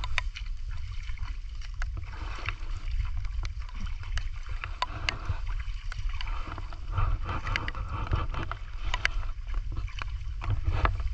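Sloshing and splashing of someone wading through shallow, muddy water, with many scattered sharp splashes and drips and rain falling on the water. A steady low rumble runs underneath.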